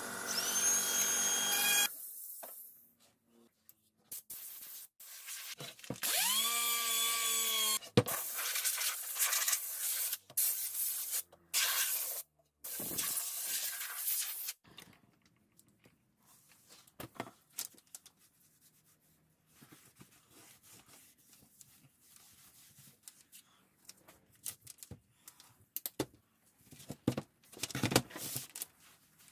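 Handheld rotary tool whining, stopping after about two seconds; about six seconds in it spins up again with a rising whine, runs briefly and winds down. Then several seconds of rubbing and scraping on the hardwood board, followed by faint scattered knocks.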